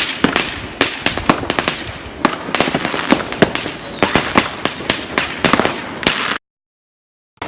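New Year's fireworks and firecrackers going off all around: a dense, irregular stream of sharp bangs and cracks over a steady crackling background. The sound cuts out completely for about a second near the end.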